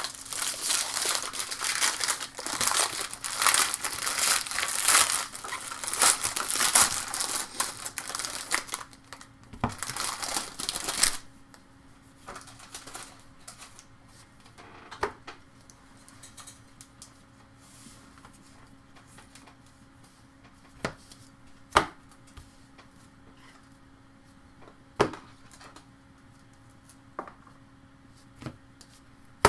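Trading-card pack wrapper crinkling and tearing as a pack is opened, loud and continuous for about the first eleven seconds. It then drops away to quiet handling of a stack of cards, with a few sharp clicks.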